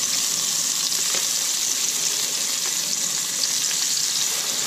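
Seasoned whiting fillets sizzling steadily in a hot nonstick pan with no oil or butter, with a few faint clicks of a spatula and fork against the pan as the fillets are turned.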